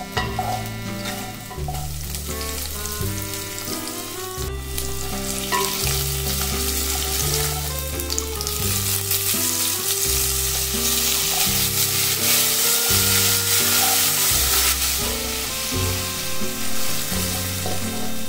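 Shallots and green chillies sizzling in hot oil while a wooden spatula stirs them. The sizzle grows much louder about halfway through, once chopped tomatoes are added. A soft music track with low bass notes plays underneath.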